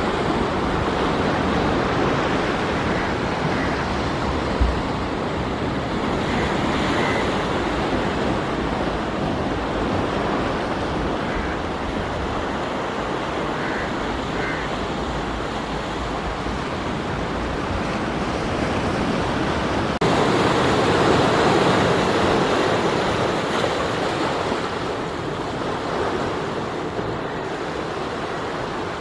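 Sea surf washing over and around rocks on a rocky shore, a steady rush of water that swells louder about twenty seconds in. A brief low thump about five seconds in.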